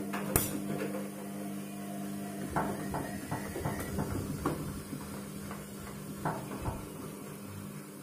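Front-loading washing machine mid-wash: the motor hums steadily as the drum turns, with a sharp click near the start. From about two and a half seconds in comes a run of irregular knocks and clatter as the wet jacket and water tumble in the drum.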